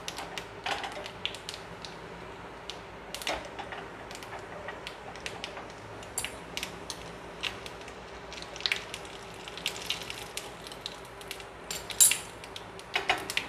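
Ghee with cumin seeds and red chilli powder sizzling in a small steel tadka pan: a steady frying hiss dotted with crackles and pops, with one sharper click about twelve seconds in.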